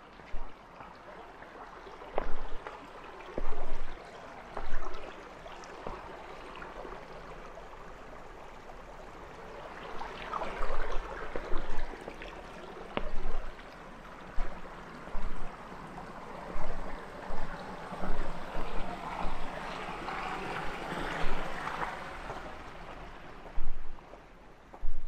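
Rushing water, swelling louder twice, with short knocks or thumps at irregular intervals.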